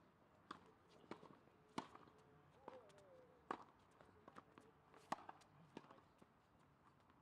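Faint tennis rally on an outdoor hard court: sharp knocks of racket strikes and ball bounces come every half second to second and a half, with footsteps on the court.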